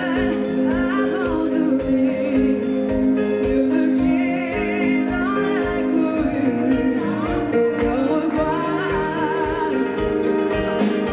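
Live pop band playing a song: several singers over electric guitars and drums, with a steady beat.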